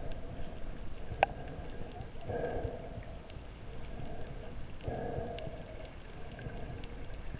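Underwater ambience: a faint crackle of scattered clicks, with one sharp click about a second in and three short swells of muffled water noise.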